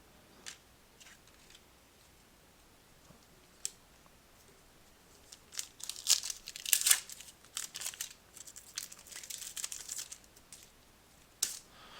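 A trading-card pack wrapper being torn open and crinkled: a few light clicks, then a dense run of crackling, crinkling rustles in the second half.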